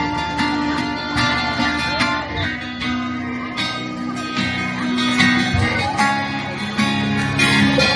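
Background music led by a plucked acoustic guitar, with notes picked in a steady rhythm.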